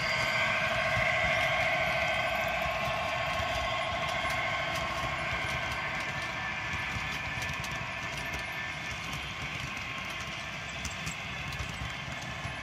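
A model Class 66 diesel locomotive's sound decoder plays its diesel engine note through the loco's small onboard speaker. The sound fades steadily as the train moves away. Model wagon wheels add a low rumble and, in the later part, light clicking on the track.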